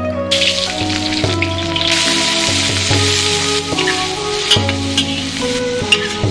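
Small freshwater river shrimp hitting hot oil in a wok: a loud sizzle starts suddenly just after the start and keeps going as they fry, with a few sharp knocks of the metal spatula against the wok.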